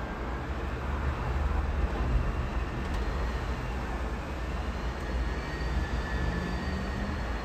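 Strong wind rumbling on the microphone over a steady wash of city road traffic, with faint high tones that drift slowly up and down.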